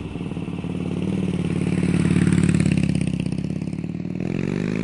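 Motorcycle engine running with a fast pulsing exhaust. It swells in level to about halfway through, then eases off, and revs up near the end.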